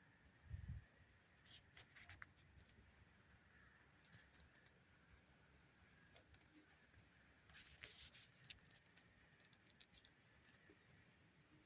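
Faint night ambience: a steady high-pitched cricket trill, with scattered sharp crackles of a campfire, a dull low thump about half a second in, and four quick high chirps a little before the middle.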